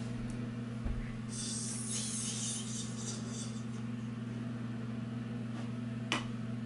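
Quiet room tone with a steady low electrical hum, a soft hiss lasting about two seconds starting a second in, and a small click near the end.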